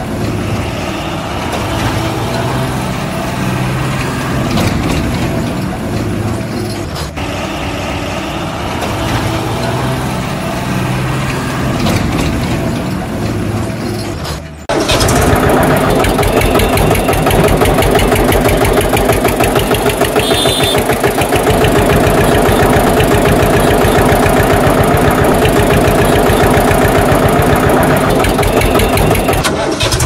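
Heavy vehicle engine running for the first half. About halfway in it cuts suddenly to a louder tractor engine with a fast, even chug.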